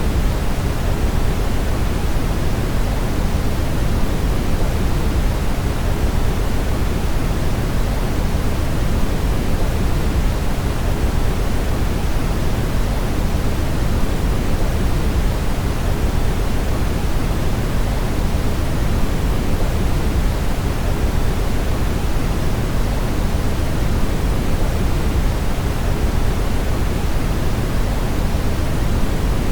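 Brown noise: a steady, unchanging rushing rumble, heaviest in the bass and thinning toward the treble.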